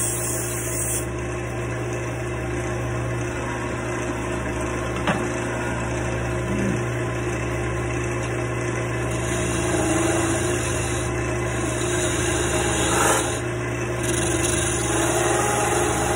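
Wood lathe running steadily, its motor humming as it spins a wooden lure blank, with a single short click about five seconds in.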